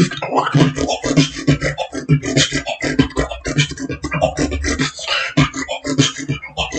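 Human beatboxing: a fast, dense rhythm of mouth-made percussive clicks and hits, with a longer deep bass hum held about four seconds in.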